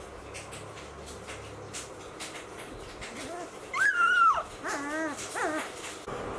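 Labrador puppy whimpering: one long high whine that falls away at its end, followed by two or three shorter wavering whimpers.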